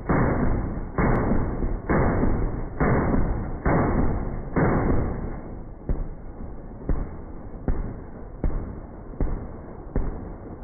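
M2 .50 BMG heavy machine-gun fire slowed down with high-speed footage. It is a string of deep booms about one a second, each ringing out before the next. The booms turn weaker and sharper about six seconds in.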